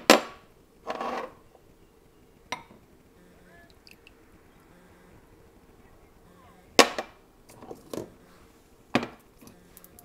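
Glass bowls, a measuring cup and sauce bottles being handled and set down on a countertop: about six sharp clinks and knocks scattered through the stretch, the loudest right at the start and about seven seconds in.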